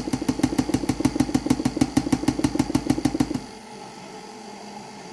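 KitchenAid stand mixer running with its dough hook, a fast, even knocking of about nine strokes a second. The knocking stops abruptly about three and a half seconds in, leaving a quieter steady motor hum.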